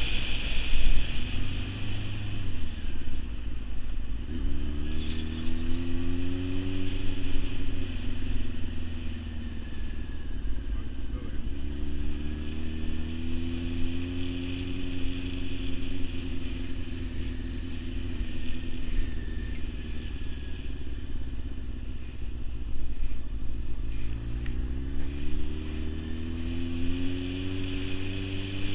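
Sport motorcycle's engine heard from the rider's seat, pulling away and climbing in pitch three times, about four, twelve and twenty-four seconds in, and easing off to a lower, steadier note in between.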